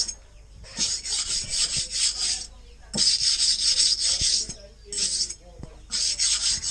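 Knife blade being rubbed quickly back and forth on a round sharpening stone (a rebolo, an old grinding wheel laid flat), giving a gritty scraping. It comes in four runs of rapid strokes with short pauses between.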